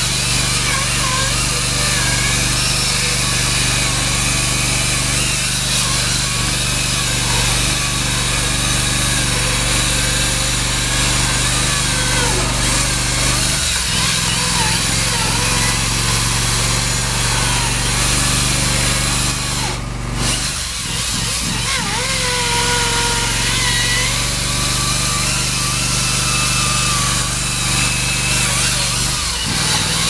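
Hydraulic ICS diamond chainsaw cutting concrete, its water-fed diamond chain grinding steadily through the wall over a steady low hum. The sound dips briefly about two thirds of the way through.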